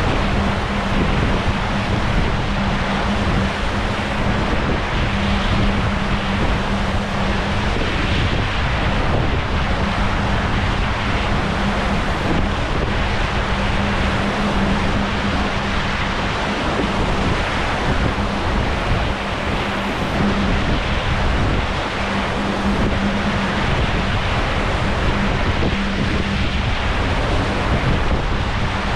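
Wind buffeting the microphone and water rushing past the hulls of a Dragonfly 25 Sport trimaran under sail, as a steady rush of noise. A steady low hum drops in and out over it.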